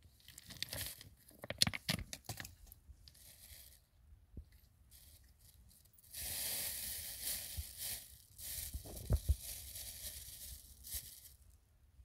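Rustling and tearing noises with scattered sharp clicks: a patchy start, then a longer, louder stretch of rustling from about six seconds in.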